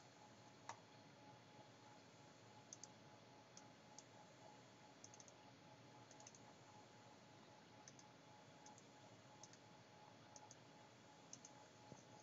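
Near silence, with faint, irregular clicks from a computer being operated, single or in quick pairs every second or so, over a faint steady tone.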